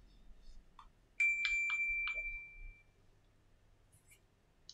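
A single clear metallic ding about a second in, ringing on for about a second and a half as it fades. It sounds like a small metal tool or part being struck or set down, with a few light clicks while it rings.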